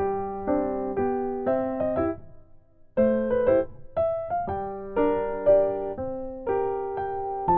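Background music: a bright electric-piano tune played in a bouncy, even rhythm, pausing for about a second near the middle.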